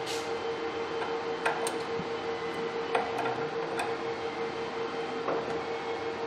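Half a dozen sharp metallic clicks at irregular intervals as small steel parts of a disassembled Bosch diesel injector are worked with tweezers and a small screwdriver in a holding stand, over a steady hum.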